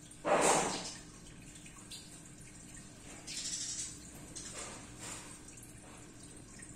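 Short bursts of water splashing or trickling. The loudest comes about a quarter second in, with weaker ones a few seconds later.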